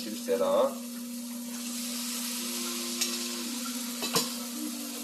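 Food sizzling in pans on an electric stove, the hiss growing stronger a second or two in, over a steady low hum. A metal bowl and spoon clink and ring near the start, and a sharp metal clank comes about four seconds in as a pan lid is handled.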